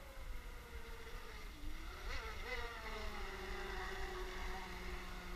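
Whine of an RC race boat's Neu 2230 brushless electric motor as the boat runs across the water; the pitch falls about a second and a half in, jumps back up, then holds fairly steady.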